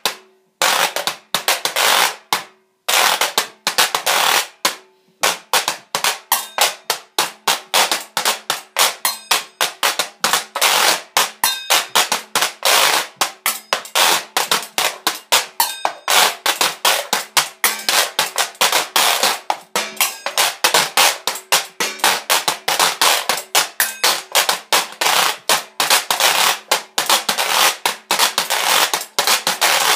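Homemade washboard played as percussion, scraped and struck, with a bowl and a tobacco tin among the things hit. A few spaced strokes with short gaps open it, then from about five seconds in it settles into a fast, steady rhythm of several strokes a second.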